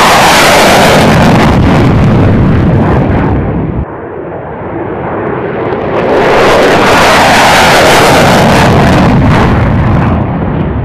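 Single-engine F-16 fighter jet at full afterburner power climbing out on takeoff, a loud jet noise that drops off suddenly a little over a third of the way in. It then builds again to full loudness for another climb-out and eases off near the end.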